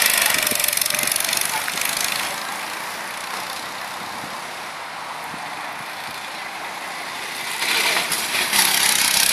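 Go-kart engines running around the track as a steady buzzing haze, fading a couple of seconds in and growing louder again near the end as karts come back closer.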